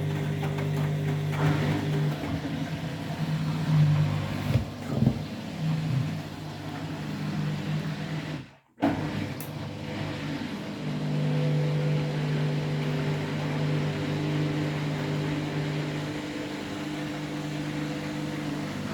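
Front-loading washing machine drum in its final spin with an unbalanced load of two bathrobes, a steady motor hum and drum rumble, unevenly louder around four to five seconds in. The sound cuts out for a moment about eight and a half seconds in, then carries on.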